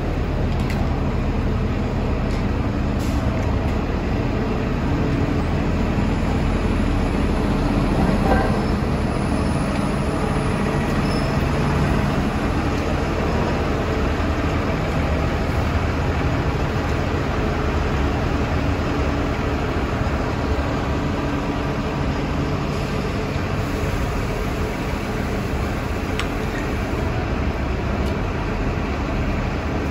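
City transit buses running at a curbside stop, one pulling away, with passing street traffic: a steady low engine hum under continuous traffic noise.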